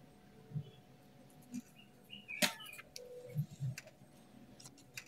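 Felt-tip marker squeaking in short strokes as it is drawn along a plastic French curve on paper, with soft knocks of the ruler and one sharp click about two and a half seconds in.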